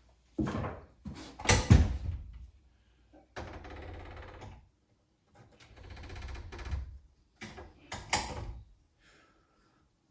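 Metal clunks and knocks from the skid steer's undercarriage rollers being handled and checked for wear, with two stretches of about a second each of steady rolling rattle as a roller is worked. The loudest knock comes about two seconds in.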